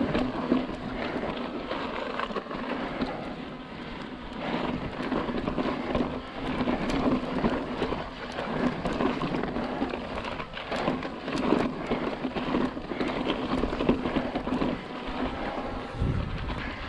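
Fezzari La Sal Peak hardtail mountain bike climbing over chunky rock, heard close up: a steady crackling rush of tyres on rock, with frequent sharp clicks and rattles from the bike.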